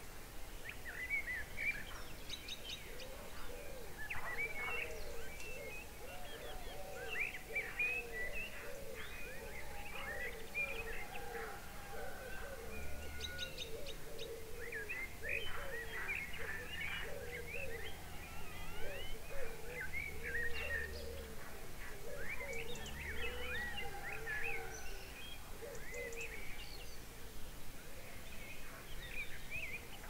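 Countryside dawn chorus: many birds chirping and singing at once, with a dense string of short, low repeated calls beneath them.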